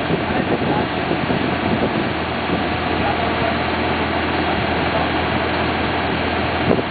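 Skid-steer loader's engine running steadily at idle. There is a single short knock near the end.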